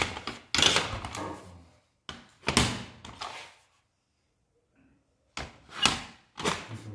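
A series of knocks and clatters from hard objects being handled and set down, in two groups with a quiet pause between them.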